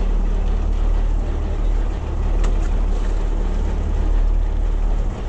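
A fishing boat's engine running steadily with a low hum, under a haze of wind and sea noise; one faint click about two and a half seconds in.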